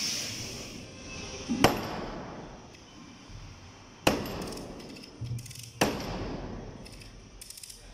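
Three heavy mallet blows on the timber of a wooden boat hull, about two seconds apart, each ringing briefly, driving a frame into place. A few lighter knocks follow, then a short rattle near the end.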